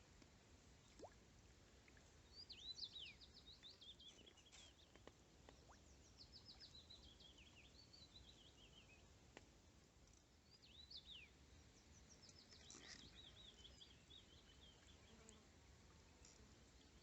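Faint songbird singing: several phrases of quick notes that fall in pitch, repeated every few seconds.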